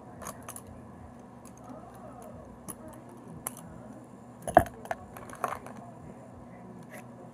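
Plastic pens and markers clicking and clattering against each other as they are handled, in scattered light knocks, the sharpest about four and a half seconds in.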